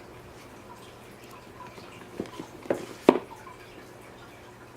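A few light knocks and taps from handling thick board books and a reading pen, three or four in under a second, the last the loudest, over a faint low hum.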